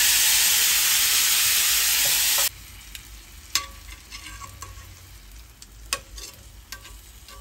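Loud sizzling as leftover soy-and-sesame marinade hits a hot cast-iron skillet with yellowtail fillets in it. About two and a half seconds in it cuts off abruptly to a much quieter simmering sizzle, broken by a few sharp clicks of metal tongs against the pan as the fish is turned.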